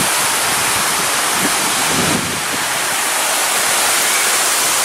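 Steady rush of splashing water, even and unbroken, typical of a pool's water cannons and fountains.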